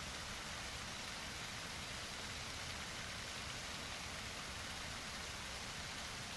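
Steady, even rushing noise like running water, with no separate splashes standing out.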